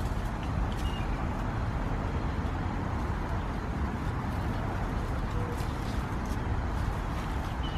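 Steady outdoor background noise with a low rumble, and a couple of faint high bird chirps about a second in and near the end.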